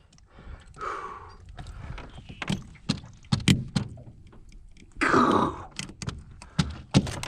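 Irregular knocks and thumps, several sharp ones in the middle and near the end, with a brief rushing noise about five seconds in.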